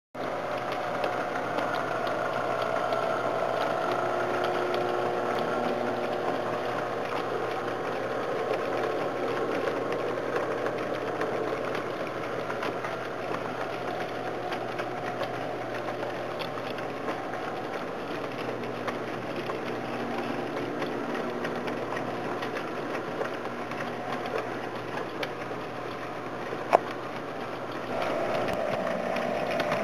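S-scale model train with two S Helper switcher locomotives pulling gondolas along the track. It gives a steady mechanical hum with a light patter of clicks from the wheels over the rails, and one sharp click near the end.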